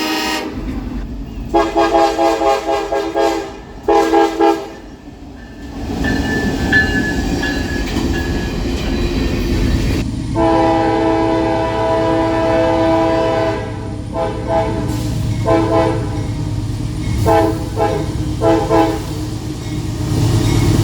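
Locomotive air horn sounding a chord of several notes in a series of blasts: a couple of short ones near the start, a long blast about halfway through, then a run of short toots, over the low rumble and wheel clatter of the passing train.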